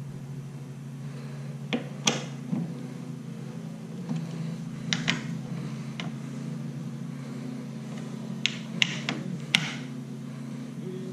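Long-handled ratchet wrench tightening the windshield frame bolts: sharp metal clicks, one about two seconds in, another about five seconds in, then a quick run of four near the end, over a steady low hum.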